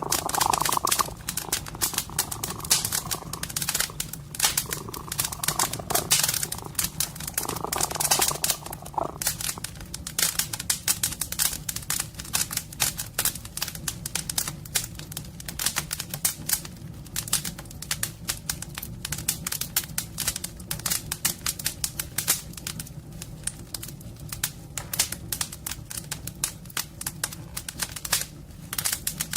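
Wood fire crackling in a fireplace, a dense run of irregular pops and snaps, over a steady low purr from a domestic cat.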